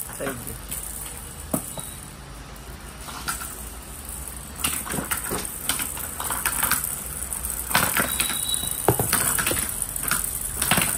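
Small plastic balls rolling and clattering down the tiers of a plastic spiral ball-drop ramp toy, with irregular clicks and knocks as they drop from level to level. The clatter gets busier about halfway through.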